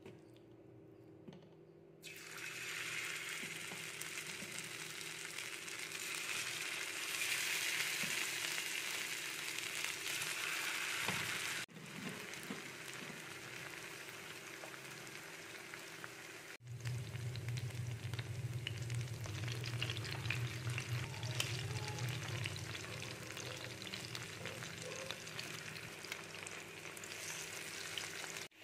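Marinated, cornflour-coated chicken pieces shallow-frying in a little oil in a nonstick pan, a loud steady sizzle that starts about two seconds in and cuts off sharply twice. A wooden spatula stirs and turns the pieces, and a steady low hum runs underneath.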